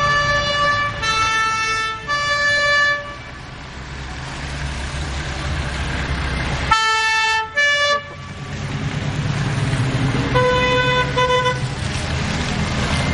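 Vehicle horns honking as a line of cars drives past, over engine and tyre noise on wet asphalt: three toots in the first three seconds, a loud pair of blasts about seven seconds in, and two shorter toots near eleven seconds.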